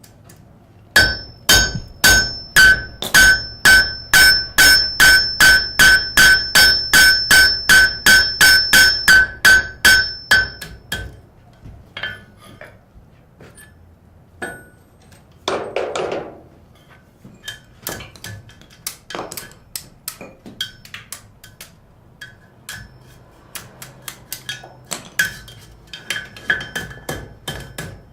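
Blacksmith's hammer striking hot metal on an anvil: a steady run of ringing blows, about two and a half a second, for some nine seconds. Then slower, lighter, irregular taps, with a short rushing noise midway.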